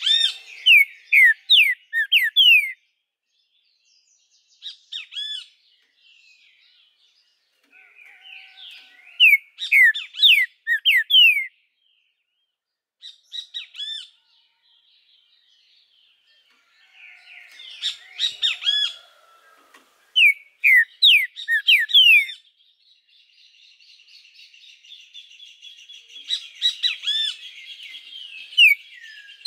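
Green-winged saltator (trinca-ferro) singing loudly in repeated short phrases of clear, slurred whistles that mostly fall in pitch, with pauses of a second or two between phrases. A softer, buzzy chattering runs under the song near the end.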